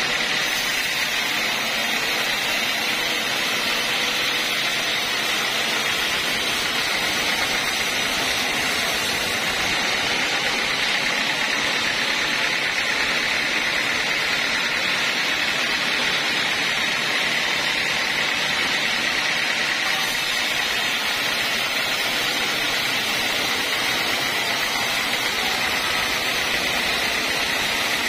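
Homemade band sawmill sawing a mahogany log lengthwise into a board: the blade and machine run with a steady, even high-pitched whine and hiss.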